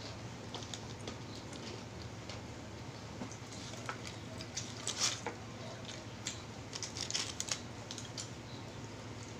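Eating sounds: scattered small clicks and crackles of chewing and of hands tearing roast chicken. They cluster about five seconds in and again around seven seconds in.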